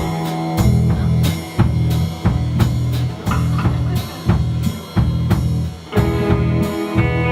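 Instrumental music with a full drum kit playing a steady beat of kick and snare hits over sustained bass and chords.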